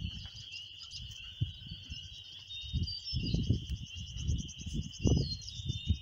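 A steady, high-pitched evening chorus of insects, with a faster pulsing trill over it in the middle. Irregular low gusts of rumble come and go underneath.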